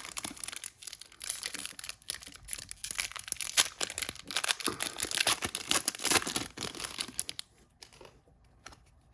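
An Upper Deck Series 1 hockey card pack being torn open, its wrapper crinkling and crackling for about seven seconds. The crinkling stops near the end, leaving a few faint clicks of handling.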